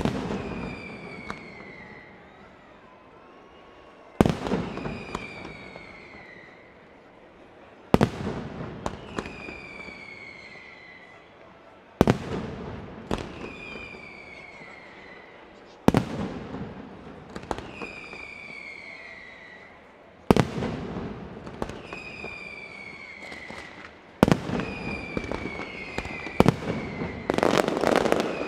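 Mascletà firecrackers going off: a sharp bang about every four seconds, each followed by a falling whistle. Near the end the bangs come thicker and faster as the barrage builds.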